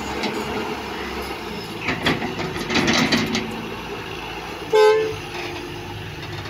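John Deere 595D wheeled excavator's diesel engine running as a bucket of soil and clods is dumped into a steel dump-truck bed with a rattling clatter. About three-quarters of the way in, a vehicle horn gives one short loud toot.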